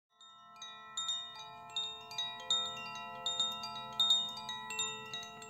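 Wind chimes ringing: irregular metallic strikes at many pitches, a few a second, each tone ringing on and overlapping the next.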